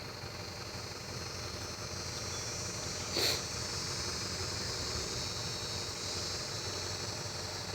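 Steady outdoor ambience: a high, even insect drone over a low rumble, with one short sharp sound about three seconds in.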